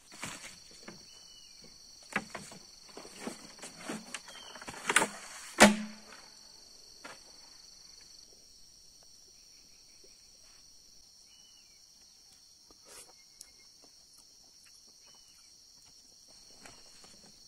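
A steady high-pitched insect drone runs throughout. Over the first six seconds it is overlaid by a run of rustles and knocks, the loudest a sharp crack about five and a half seconds in. After that only the drone, a few faint chirps and soft handling noises remain.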